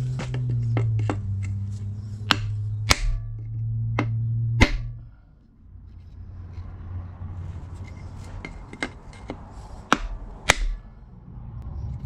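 Hammer blows on metal, a dozen or so sharp ringing strikes in two spells, as a seized piston is driven at in a rusted, water-filled Ford 360 FE block.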